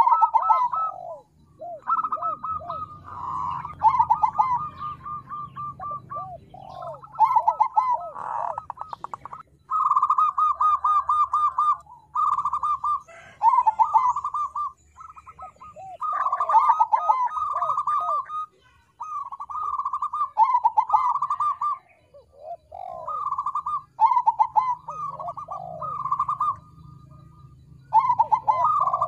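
Crossbred zebra dove (perkutut krosing) cooing: about ten phrases of fast, rolling trilled coos, each a second or two long, with short pauses between.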